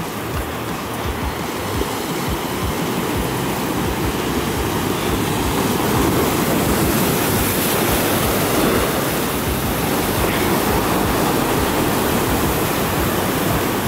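Ocean surf washing and breaking over shoreline rocks, a steady rushing that builds over the first few seconds and then holds.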